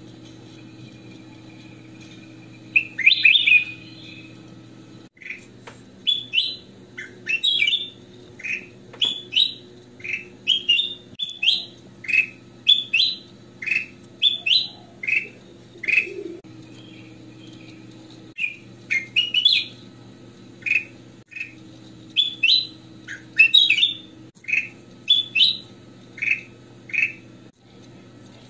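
Ruby-throated bulbul (kutilang emas) singing: a long run of short, clear chirped phrases, one or two a second, starting about three seconds in, over a steady low hum.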